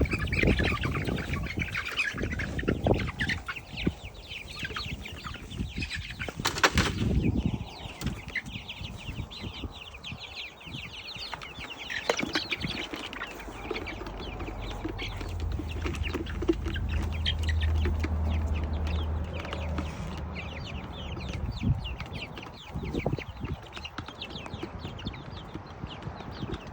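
Backyard chickens clucking and flapping as they crowd in to eat raw ground pork, with a rapid patter of small clicks throughout. A low hum rises for a few seconds past the middle.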